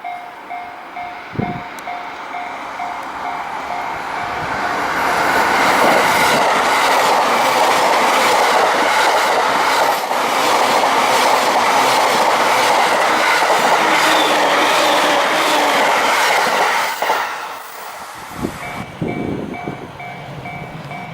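A JR Tokaido Line train running through a level crossing, its wheels clattering rapidly over the rail joints; the noise builds over the first few seconds, stays loud for about ten seconds, and drops away near the end. The crossing's warning bell rings at the start and can be heard again after the train has passed.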